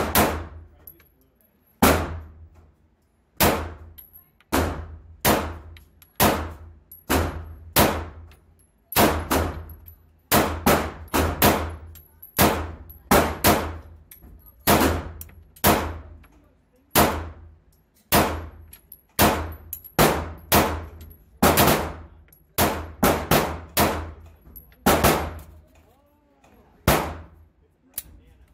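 FN 509 9mm pistol fired repeatedly, about forty shots. Some come singly and some in quick pairs and strings, each shot echoing off the walls of an indoor range.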